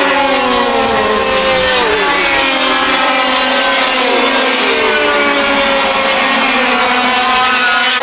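Several 100cc two-stroke kart engines running together at high revs, their overlapping engine notes sliding up and down in pitch, with sharp drops in pitch about two seconds in and just after four seconds.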